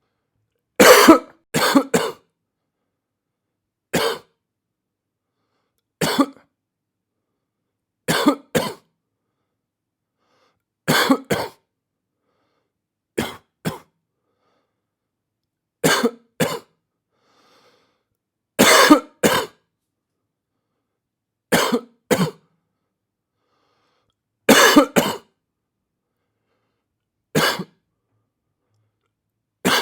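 A person coughing: single coughs and quick pairs of coughs, one burst every two to three seconds, with complete silence between.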